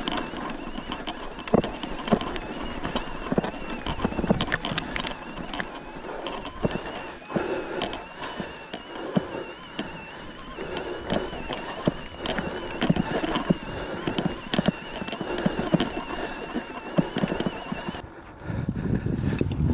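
Electric mountain bike clattering and rattling over a rough stony track, its tyres crunching on loose stones in quick uneven knocks, with a thin steady whine behind. Near the end the sound changes abruptly to a low rumbling noise.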